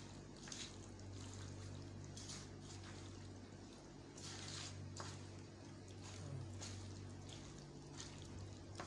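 A hand squishing and turning raw chicken pieces in a wet masala marinade in a steel bowl: soft, irregular wet squelches over a steady low hum.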